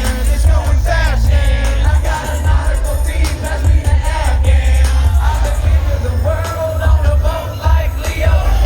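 Live hip-hop performance over a concert sound system: loud, heavy bass under vocals.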